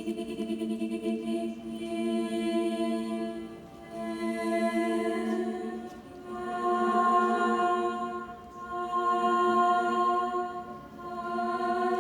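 Slow, choir-like music of long held chords that swell and fade about every two to three seconds.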